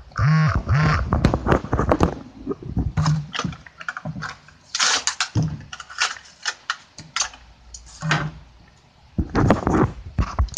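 A Hot Wheels blister pack being torn open by hand: the plastic bubble crackles and the card rips in a run of sharp, irregular crackles, loudest about five seconds in and again near the end.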